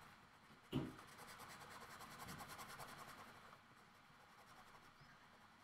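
Pencil-top eraser rubbing faintly over drawing paper, erasing sketch lines. A soft tap comes about a second in, and the rubbing fades out in the second half.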